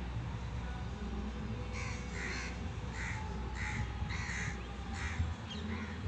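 Crows cawing, a run of about eight short caws a little under two a second starting about two seconds in, over a steady low background rumble.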